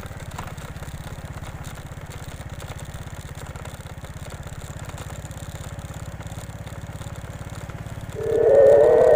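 A small motorcycle engine runs steadily, a low even rumble, while the bike rides along a dark road. About eight seconds in, a much louder, slightly wavering tone suddenly starts over it.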